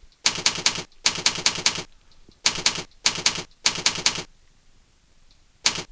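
Keyboard typing: quick clicking keystrokes in short runs of three or four, with a pause of about a second and a half near the end.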